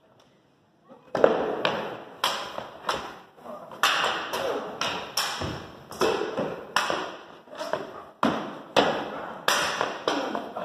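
Spear and sword striking a round wooden shield and each other in a mock fight: a quick series of sharp knocks, about two a second, each ringing briefly in a large hall. The blows start about a second in.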